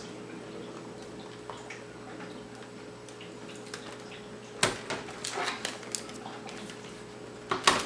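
Laptop lid shutting with a sharp click a little over halfway through, then lighter knocks and clicks as the laptop is turned over and set down on a wooden table, with a close pair of clicks near the end. A faint steady hum runs underneath.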